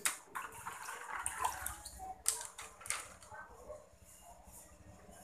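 Plastic lid being handled and pressed onto a small plastic bucket used as a DIY fish-tank filter, giving a few sharp clicks and knocks over the first three seconds, with water sounds from the wet filter.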